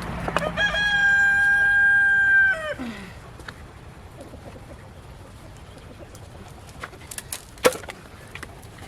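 A rooster crowing once: a single long, steady call that drops in pitch at the end. A few faint clicks and knocks follow.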